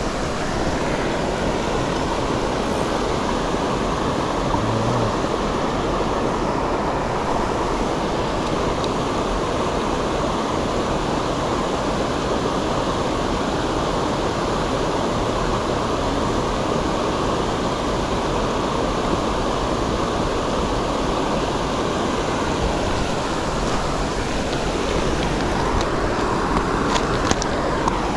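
Steady rush of fast-flowing creek water running high after rain.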